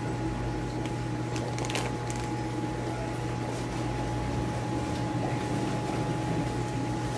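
Steady mechanical hum with a thin high tone, from the aquarium air pumps and filters running in a fish-store tank room, with a few brief rustles of plastic bag and packing near two seconds in.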